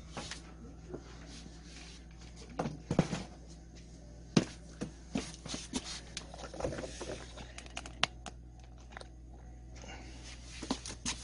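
Scattered knocks and clatter of power drills being handled and set down on a cardboard box, with shuffling movement, over a steady low hum.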